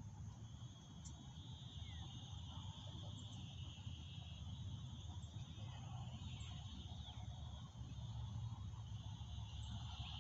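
A steady, high-pitched chorus of insects, crickets or cicadas, swelling near the end, with a few faint bird chirps over a low rumble.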